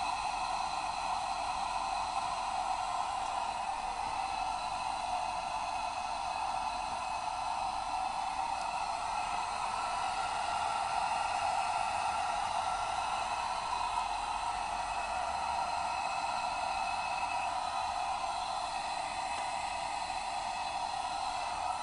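Steady, unbroken hiss from the lantern burning in the ice shanty for heat.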